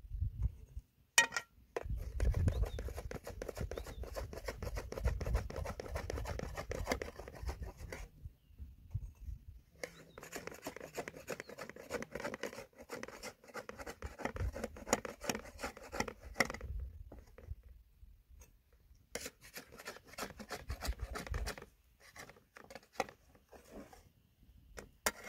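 A metal spatula scraping and turning fried dough in a shallow metal pan of oil: dense scratching in three stretches that break off suddenly.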